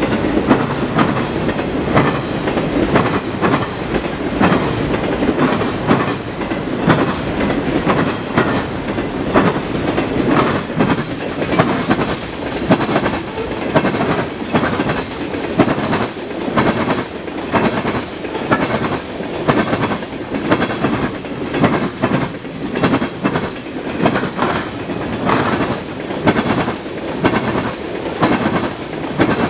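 Freight cars of a passing manifest train, autoracks, covered hoppers and tank cars, rolling by: a continuous rumble with a steady stream of clicks as the steel wheels pass over rail joints.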